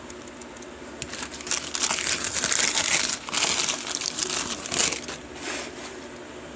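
Packaging crinkling and rustling as it is handled, in uneven surges from about a second in until about five seconds in, with small clicks.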